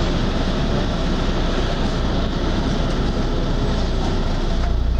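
Mercedes-Benz O-500RS coach's diesel engine running steadily with a heavy low rumble, which grows louder near the end.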